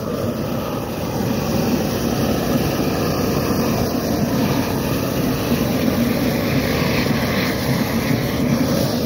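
Long-handled propane torch burning with a steady low rushing noise, its flame pointed down into a railroad switch between the point and the stock rail to thaw snow and ice.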